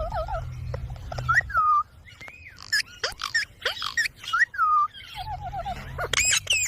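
Ringneck parrot whistling and chirping: a string of short whistled calls that swoop up and down in pitch, with some quick warbling trills, over a low rumble in the first and last parts.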